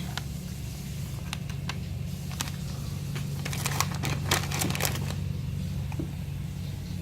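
Small packets or items being handled, giving scattered light crinkles and clicks for a few seconds, over a steady low hum.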